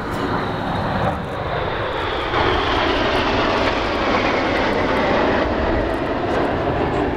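Jet engine noise from a formation of nine BAE Hawk T1 jets flying past, a steady rushing sound that grows louder about two seconds in and slowly falls in pitch.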